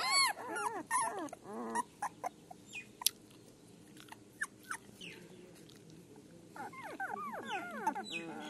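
Newborn puppies whimpering and squealing in high, wavering calls: a run of them in the first two seconds, then quieter, then another run of falling squeals near the end.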